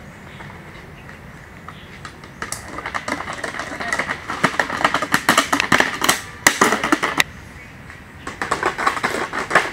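Two-wheeled self-balancing scooters (hoverboards) tumbling and rolling down an asphalt slope: a rapid clatter of hard knocks on the pavement starts about two and a half seconds in, stops for about a second near the end, then starts again as the next board comes down.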